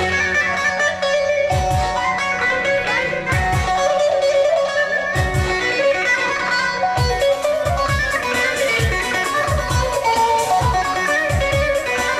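Dance music: a plucked string instrument plays a busy melody over deep drum hits that drop in pitch.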